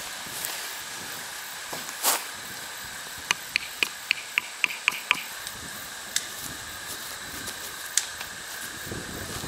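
A quick run of about eight sharp, slightly ringing clicks as a tent corner is staked out with a peg and guyline, over a steady hiss.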